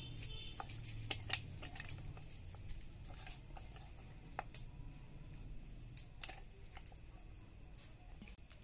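Scattered light taps and scrapes of a stainless steel mixer-grinder jar against a steel plate as ground coconut is shaken out of it, the sharpest knock about a second and a half in.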